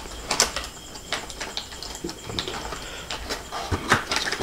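Plastic packaging and cardboard rustling and crinkling as parts are handled in a box, with scattered small clicks and a few sharper knocks near the end.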